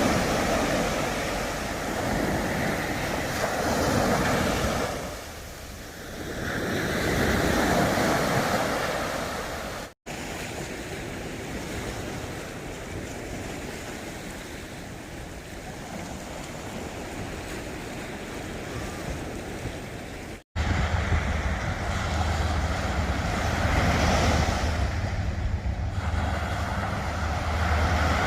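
Sea waves surging and washing in with wind. The sound swells, dips about five seconds in and swells again, then cuts to a steadier wash. After a second cut, wind buffets the microphone and a steady low hum runs under the surf.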